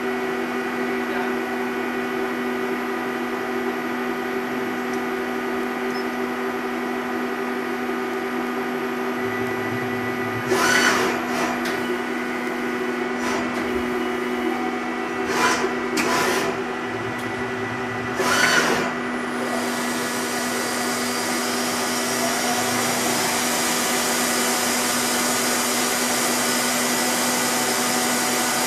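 Hitachi Seiki HiTec-Turn 20S III CNC lathe running through a program with no tooling: a steady machine hum and whine, with several short whooshing movement noises in the middle and a hiss that grows louder over the last third.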